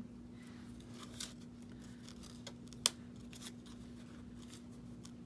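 Quiet hand handling of small paper scraps and a sticker label: light rustles with a few short ticks and taps, the sharpest about three seconds in, over a faint steady hum.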